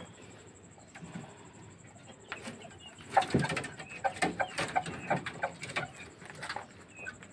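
Chickens calling with short clucks and high peeps, along with scuffling and knocking as a chicken is caught and handled. This starts about two seconds in, with a louder thump about a second later.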